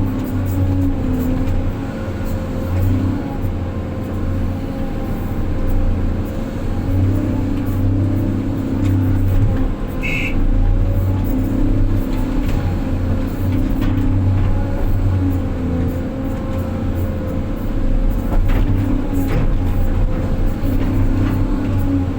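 Six-wheel dump truck's diesel engine running steadily with small shifts in pitch, and a short high beep about ten seconds in.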